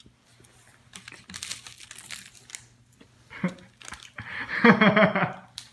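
Fun Dip candy packet crinkling as it is handled, with a man's voice near the end.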